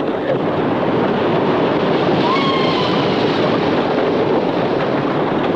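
Wooden roller coaster train running along its track: a loud, steady rumble and rattle with wind rushing over the microphone, and a brief faint squeal about two seconds in.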